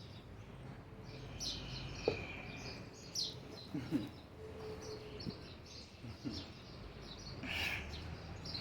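Birds chirping, with many short high chirps over a steady background hum.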